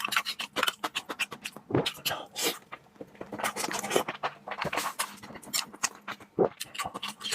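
Close-up chewing of raw salmon: a rapid, irregular run of wet mouth clicks and lip smacks.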